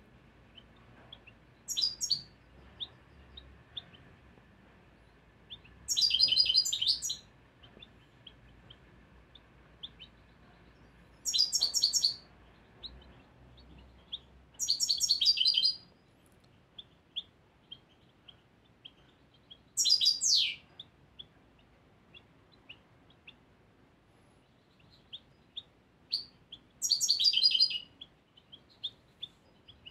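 Young European goldfinch, a bird of the year, singing about six short bursts of high twittering song, one ending in a falling sweep, with faint single chirps between. Its song is at the stage of becoming fixed in its adult form.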